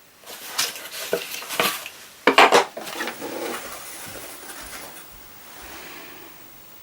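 Metal precision squares being handled, clinking and knocking against each other and their MDF holder: a few sharp clicks, a louder clatter about two and a half seconds in, then soft handling noise that fades.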